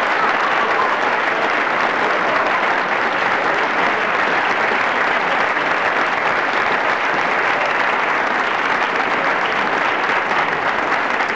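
Audience applauding, a steady, unbroken clapping.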